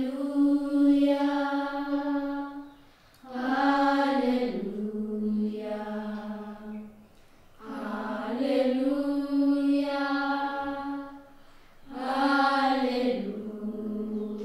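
A slow sung chant in long held notes, in four phrases of about four seconds each. Each phrase starts on a higher note and steps down to a lower one.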